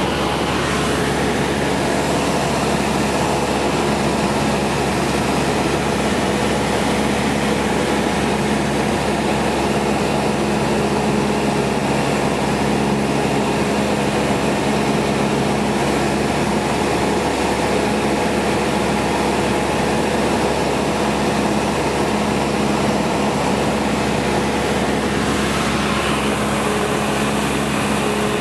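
Cessna 172 Skyhawk II's four-cylinder Lycoming engine and propeller running steadily in flight, heard inside the cabin: an even hum of several low tones over a rush of air.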